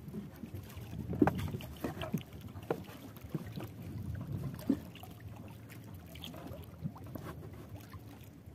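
Water sloshing and splashing around a small wooden outrigger canoe as it is paddled, with scattered knocks against the wooden hull, the loudest a little over a second in.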